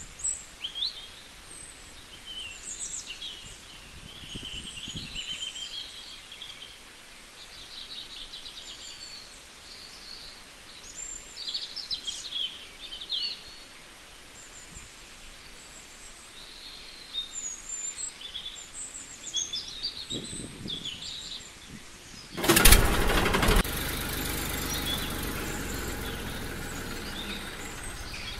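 Small birds chirping, many short high calls over a light outdoor hiss. About 22 seconds in, a sudden loud burst starts and settles into a steady whirring hiss that lasts to the end.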